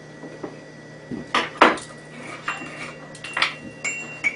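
Metal spoons and silverware clinking: a string of sharp clinks, the loudest about a second and a half in, several of them ringing briefly.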